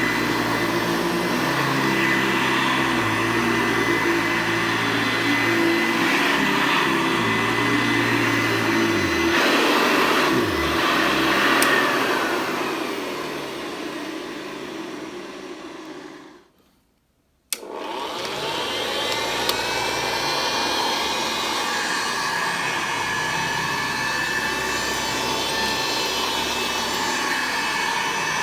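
Upright vacuum cleaner running steadily, then switched off and winding down with a falling pitch over a few seconds. After about a second of near silence, a vacuum starts suddenly and its motor spins up to a steady run.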